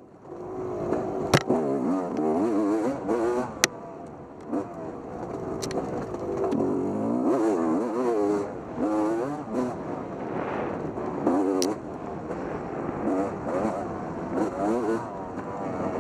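Off-road motorcycle engine revving up and down continuously, as the throttle is worked through a trail section, with a few sharp knocks.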